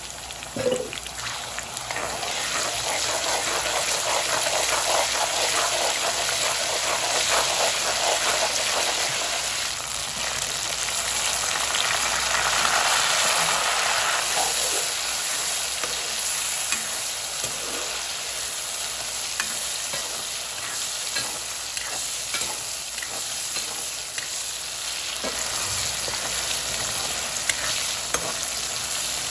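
Food frying in hot oil in a pan, a steady sizzle that gets louder about two seconds in, while it is stirred, with short scrapes and taps of the spoon against the pan.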